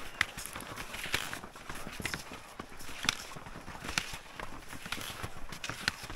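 A backcountry skier's steps on crusty spring corn snow: a steady, even rhythm of crunches, about one a second, over a continuous rustle.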